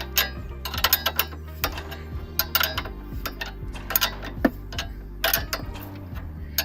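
Ratchet wrench clicking in irregular runs as a bolt or nut is worked on the car's front suspension, with a steady low hum underneath.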